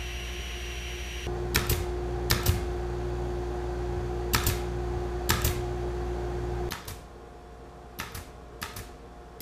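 Pneumatic headless pin nailer firing into wood trim: sharp clicks, mostly in quick pairs, a second or so apart.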